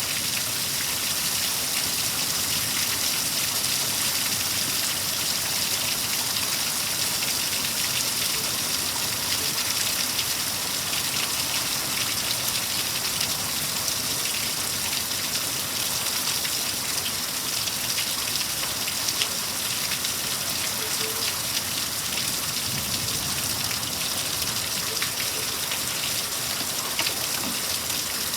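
Rain from a severe thunderstorm falling steadily: a constant, even hiss with many small drop hits.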